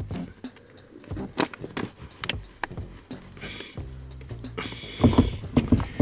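Hand-tool work at a car's accelerator pedal: scattered clicks and knocks of plastic and metal, with a burst of scraping about three and a half seconds in and a louder scraping clatter around five seconds in, over a low hum in stretches.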